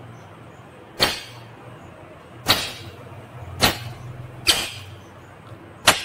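Indian ringneck parakeet giving five short, harsh, loud squawks, spaced about one to one and a half seconds apart, over a low steady hum.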